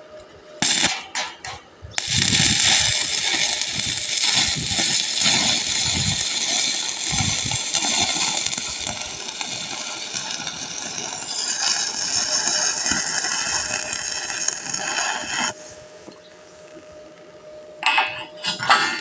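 Stick welding arc burning on a steel pipe joint: the arc catches briefly about a second in, then crackles and sizzles steadily for about thirteen seconds before cutting off. A few light metallic clinks near the end.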